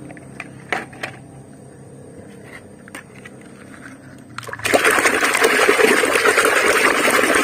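A few light clicks and knocks. Then, about four and a half seconds in, loud sloshing and splashing begins and keeps on as a muddy toy truck is scrubbed by hand in a basin of water.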